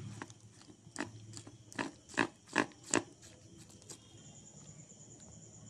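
A spoon stirring and beating thick besan batter in a steel bowl: a run of short strokes, about two or three a second, loudest in the middle and stopping about four seconds in.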